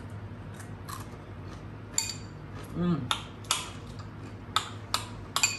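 Metal spoon clinking and scraping against a white ceramic bowl, about half a dozen sharp clinks starting about two seconds in, some ringing briefly.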